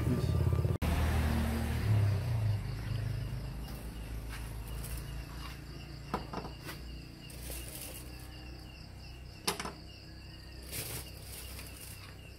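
Crickets chirping steadily, with a few sharp clicks and taps from small objects being handled. A low rumble dies away over the first three seconds.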